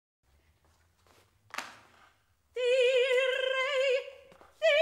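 A high operatic voice holds one long note with wide vibrato for about a second and a half, after a short noise; a second, higher note begins near the end.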